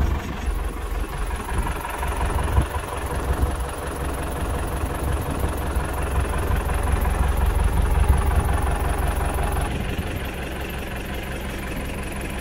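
Truck engine idling steadily with a deep low rumble, a little quieter from about ten seconds in.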